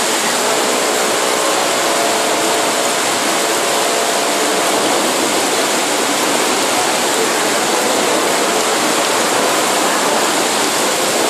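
Very heavy rain pouring onto a wet street, a loud, steady, dense hiss with no let-up.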